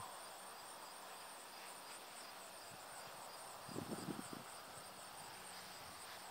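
Faint, steady high-pitched chirring of insects in the background, with a short cluster of soft low thumps about four seconds in.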